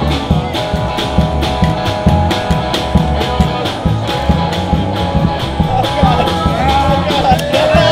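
Live street music: an upright double bass plucked to a quick, steady beat, with a held melody line above it.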